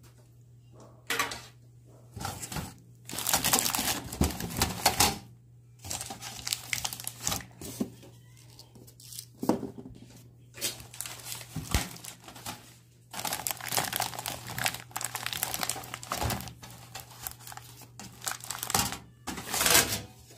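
Clear plastic wrap on a mini oven's metal baking tray and wire rack crinkling in repeated irregular bursts as the tray is handled, the loudest burst near the end. A faint steady low hum runs underneath.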